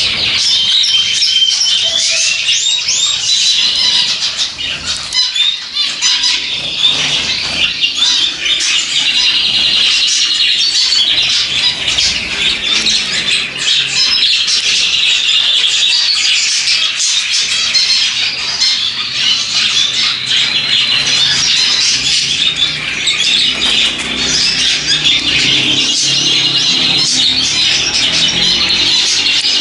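Many small caged birds chirping and chattering together in a dense, unbroken chorus.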